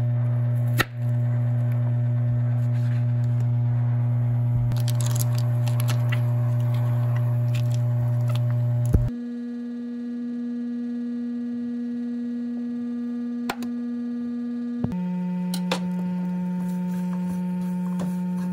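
Steady electronic humming tones that jump abruptly to a new pitch twice, about 9 and 15 seconds in, with a few faint clicks.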